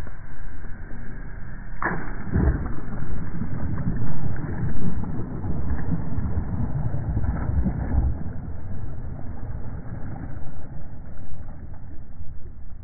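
Muffled whoosh of a cast net thrown over the water, with a sharp swish about two seconds in, then a low, rumbling splash as the net's weighted edge hits the water and sinks.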